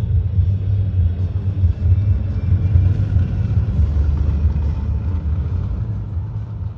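A car driving: steady low road and engine rumble, which starts to fade near the end.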